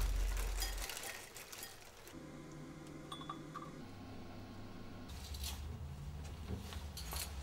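Quiet room with a low hum and a few light clicks; near the end, sharper clicks as a front door's handle and latch are worked.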